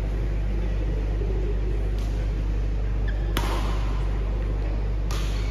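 Steady low hum of a large sports hall, with two sharp cracks of badminton rackets striking a shuttlecock about a second and a half apart near the middle and end, each with a short echo, and a fainter tick before them.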